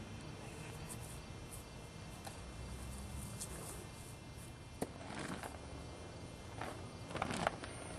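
Faint outdoor background with a sharp click about five seconds in and a few short swishes and knocks, the loudest near the end, from a color guard flag pole and its silk being handled and swung.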